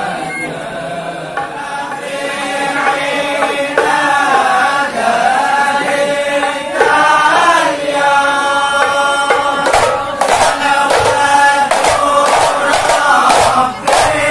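Hadrah: a group of men chanting a devotional song together with a lead voice, accompanied by hand-struck rebana frame drums. The drum beats grow loud and regular about ten seconds in.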